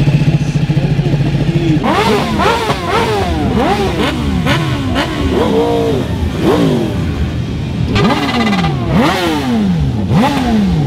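Sport motorcycle engines idling, then revved in quick repeated throttle blips from about two seconds in. The pitch rises and falls about twice a second, with blips overlapping.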